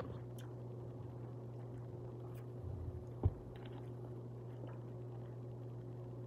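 Quiet eating at a table: a few faint clicks of a utensil on a plate over a steady low hum, with one dull knock about three seconds in.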